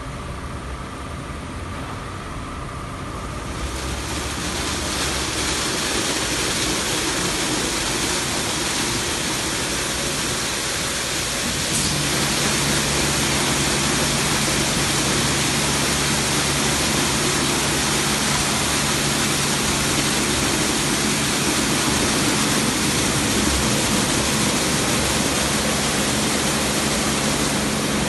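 Automatic rollover car wash gantry at work: its rotating brushes scrub a car under water spray, a steady rush that grows louder about four seconds in. About twelve seconds in a steady motor hum joins and holds.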